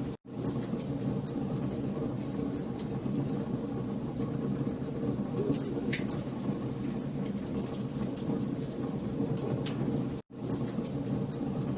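Wood fire burning in a fireplace: a steady low rush with scattered sharp crackles and pops. The sound cuts out for an instant twice, just after the start and about ten seconds in.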